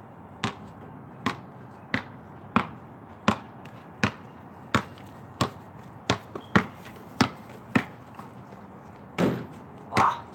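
Basketball dribbled on pavement: a steady run of sharp bounces about every two-thirds of a second, stopping about eight seconds in. Two longer, duller sounds follow near the end.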